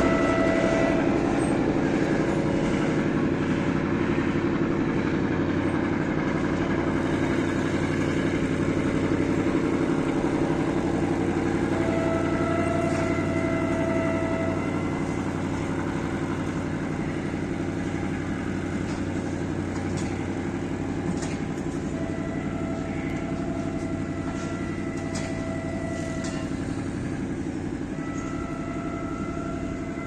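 Freight train rolling away along the track, its steady low rumble fading. The DE 24000 diesel locomotive's horn sounds in the distance in long blasts: one ending about a second in, one about twelve seconds in, a pair a little later, and another near the end.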